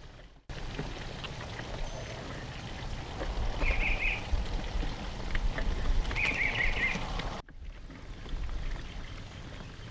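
Water draining out through the drain of a cooler packed with live crawfish: a steady trickling patter over a low rumble. It starts abruptly just after the start and drops off suddenly about three-quarters of the way through.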